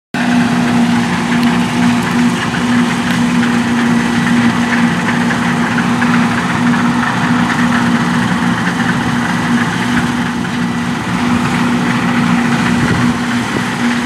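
New Holland CR9.90 combine harvester running steadily while harvesting wheat: a constant engine and machinery drone with a steady low hum.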